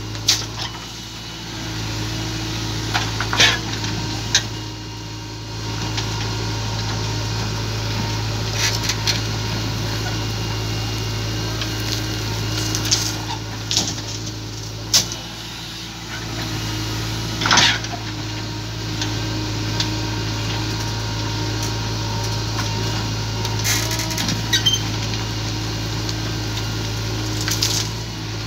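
JCB 3DX backhoe loader's diesel engine running steadily under hydraulic work, easing off briefly a few times, with occasional sharp knocks and clatters as dirt and stones from the backhoe bucket drop into the steel body of a tipper truck.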